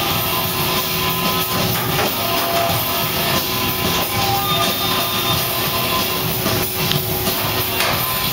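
Rock music with guitar, playing over a loud, steady din of machinery.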